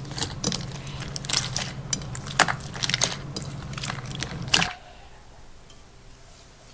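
Slime being squeezed and worked by hand, giving a run of sticky crackling pops and clicks over a low hum. Both stop about four and a half seconds in, leaving it much quieter.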